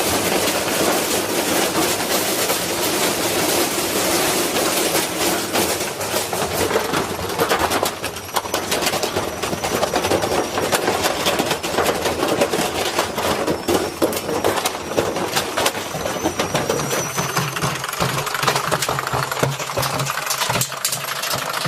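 Washing machine running hard, with a continuous fast rattling and knocking. A faint whine comes in and out higher up.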